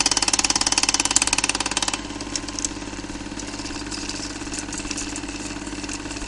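A fast, even mechanical clatter with a steady hum under it. It is loud for the first two seconds, then drops and runs on more quietly.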